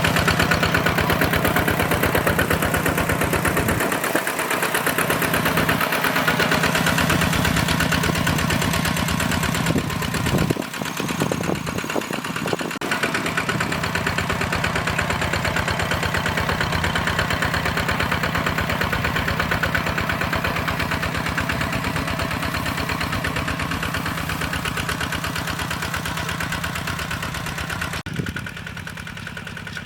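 Kubota RT120 hand tractor's single-cylinder diesel engine running steadily with a fast, even chugging, dropping quieter about two seconds before the end.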